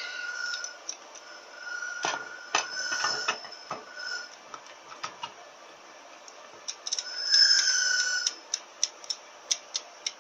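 Steel parts of a Mazda FN4AEL automatic transmission's clutch drum assembly clinking and scraping as they are handled and turned by hand, with a brief ringing scrape a little after halfway and a run of light ticks, about three a second, near the end.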